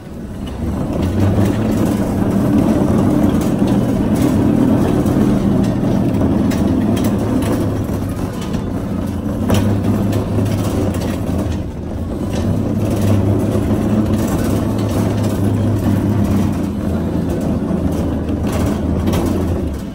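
Plastic shopping cart wheels rolling over a hard store floor: a loud, steady, low rumble that starts about half a second in, eases briefly around the middle, and stops at the end as the cart halts.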